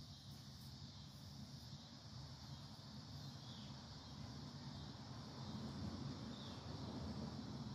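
Quiet backyard ambience: a steady low rumble under a constant high hiss-like drone, with two faint short chirps, one about midway and one near the end.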